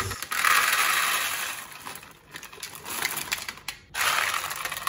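Dry red kidney beans pouring from a plastic bag into a plastic bowl, rattling as they land. The stream is strong at first, thins out in the middle and picks up again near the end.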